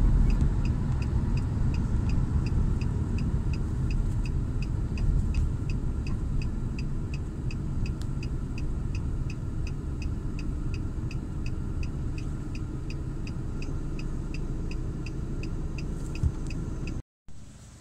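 A car on the move: a steady low road and engine rumble, with a faint light ticking about three times a second. The sound cuts off abruptly just before the end.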